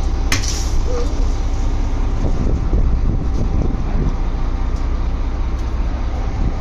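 Motorised fishing trawler's engine running steadily with a deep, constant drone. There is one sharp knock about a third of a second in and a few faint clicks.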